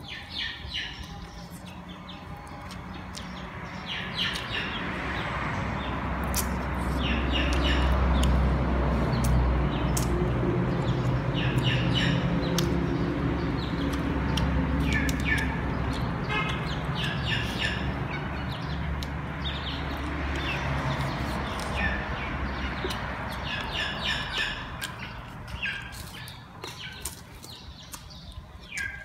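Small birds chirping in short repeated calls every few seconds, over chewing and lip-smacking clicks. A low rumble swells in the middle and fades away after about fifteen seconds.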